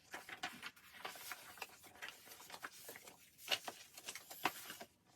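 Album packaging and inserts handled by hand: paper and plastic rustling with many light ticks and taps, the sharpest about three and a half seconds in.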